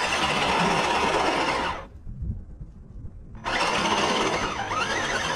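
Brushless electric motor and geartrain of an RC rock crawler whining under throttle as its wheels spin and dig into loose sand. It cuts back for about a second and a half in the middle, then pulls again with the whine rising and falling.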